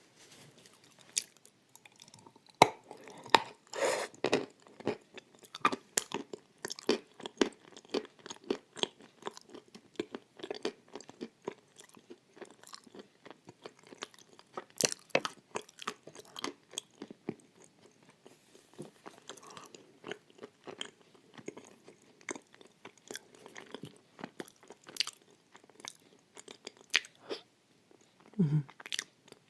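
Close-up crunching and chewing of pieces of edible clay with white chalk paste: irregular sharp crunches, several a second, with softer wet chewing between.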